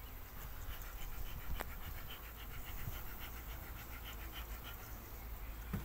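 Rapid, even panting breaths, about five a second, with a single sharp click about a second and a half in.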